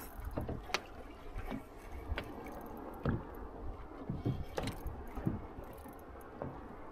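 Scattered light clicks and knocks from a fishing rod and reel as a hooked fish is played, over a low rumble of wind and water against a small boat.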